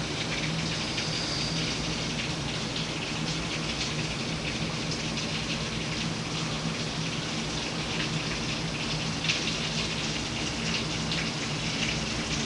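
Heavy rain pouring down: a steady hiss of rainfall with scattered drop spatters, over a faint low steady hum.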